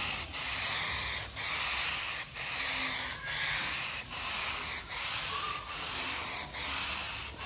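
Gravity-feed air spray gun hissing as it sprays a coat of finish onto a wooden slab, in strokes with a short break about once a second.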